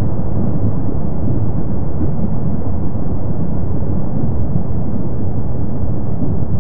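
Kilauea's erupting lava fountains and lava lake giving off a steady, low rumble without breaks.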